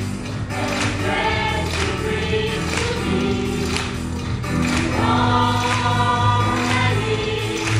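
Gospel choir singing held notes in harmony over instrumental backing with a bass line and a steady beat about once a second.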